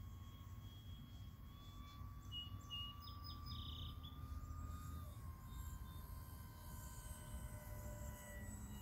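Faint whine of a Dynam F6F Hellcat RC warbird's electric motor and propeller flying at a distance, its pitch drifting slightly and dropping about five seconds in, over a low steady rumble. A few short bird chirps about three seconds in.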